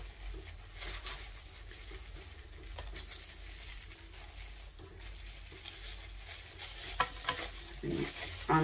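Soft crackling rustle of plastic wrap and dry moss being handled and pulled open from an air layer on a philodendron stem, with a few light clicks.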